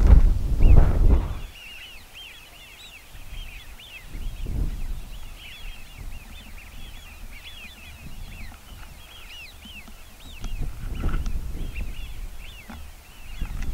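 A large flock of Eurasian wigeon whistling, many short calls overlapping without a break. Wind buffets the microphone in the first second or so and again in gusts later.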